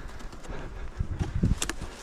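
Footsteps on packed snow: a few low thuds about a second in, with light crunching and a couple of sharp clicks just after.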